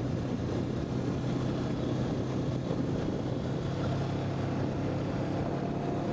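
Honda CB500X parallel-twin engine running steadily under way, with wind and road noise on the microphone.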